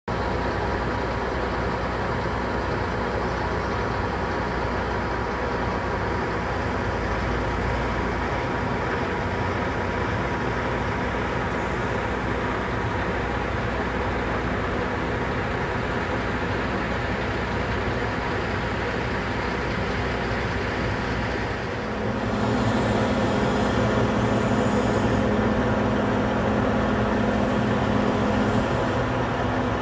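Steady running noise of a moving vehicle, heard from inside it. About two-thirds of the way through it grows a little louder and a steady hum joins in, which stops shortly before the end.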